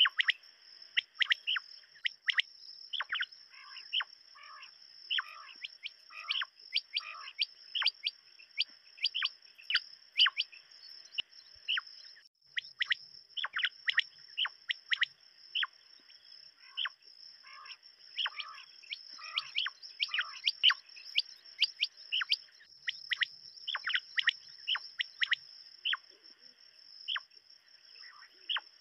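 Common quail calling: short, sharp notes repeated again and again, often in quick runs of two or three, over a steady high-pitched whine.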